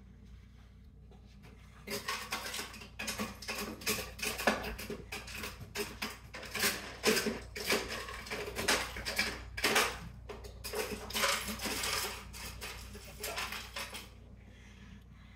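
Ice cubes being scooped from a freezer, clattering and clinking in a rapid, irregular run of sharp clicks that starts about two seconds in and stops shortly before the end.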